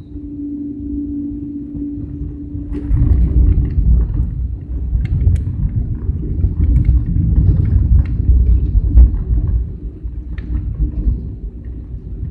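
Airliner cabin during the takeoff roll: a steady engine hum, then about three seconds in a loud low rumble with scattered clicks and rattles, easing somewhat near the end.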